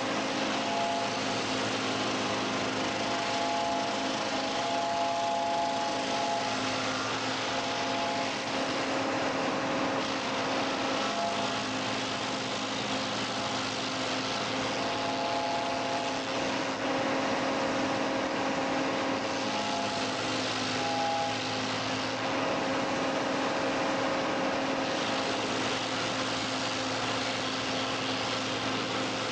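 Riko PRO 150 tractor-mounted stump grinder running steadily with the tractor's engine, a continuous mechanical drone in which a few higher tones come and go.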